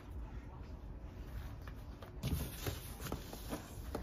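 Faint scattered knocks and rustles of a cardboard box and the grill parts packed in it being handled.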